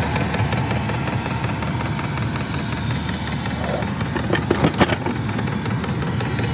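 Diesel air heater running, its combustion fan steady, with an even rapid ticking throughout. A few sharp clicks come about four and a half seconds in.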